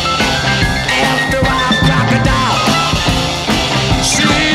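1964 British beat-group rock and roll single playing: a full band with a steady beat.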